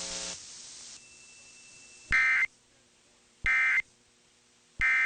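Three short Emergency Alert System end-of-message data bursts, the SAME "NNNN" digital tones, each a fraction of a second of buzzy warbling around 2 kHz and about 1.3 seconds apart. They mark the end of the alert broadcast.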